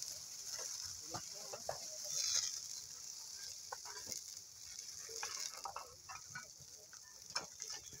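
Faint crackling of a pine and brush fire burning, scattered small pops over a steady hiss.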